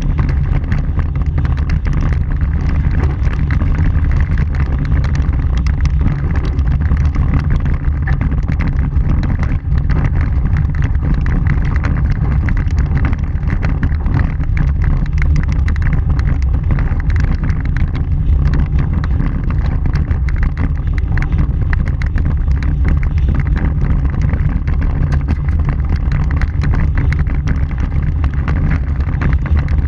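Vehicle driving on a gravel dirt road, heard from a camera on its front bumper: a steady, loud rumble of tyres and wind buffeting the microphone, with a constant patter of small clicks and knocks from the gravel.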